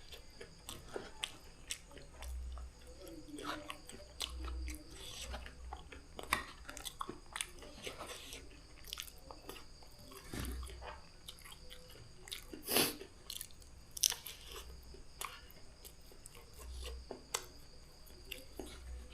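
Close-up chewing and mouth sounds of someone eating noodles, with many short irregular wet smacks and slurps and a few louder ones in the second half.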